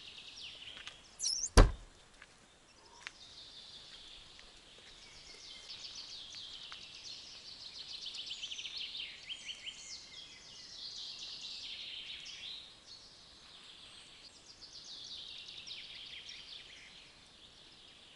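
Songbirds singing in woodland at dawn, mostly quick high trills of many rapid notes, one song after another. A single sharp click about a second and a half in is the loudest sound.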